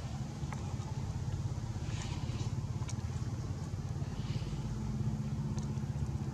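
A motor vehicle engine running steadily nearby, a low rumble, with a few faint light clicks.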